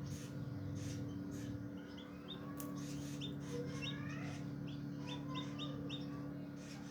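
Shamo Aseel chick peeping as it hatches: a run of short, high cheeps, some in quick groups of two or three, with a few sliding calls, over a steady hum.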